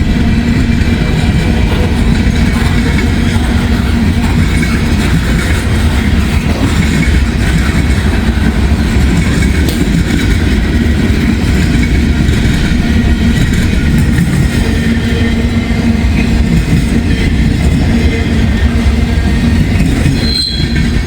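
Freight train cars rolling past close by, with steady wheel and rail noise.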